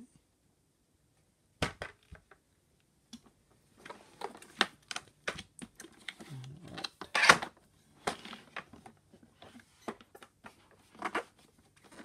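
Hard plastic parts of a new Hoover FloorMate Edge floor cleaner clicking and knocking as they are handled during unboxing. A sharp knock comes about two seconds in, then irregular clicks and taps, with the loudest knock about halfway through.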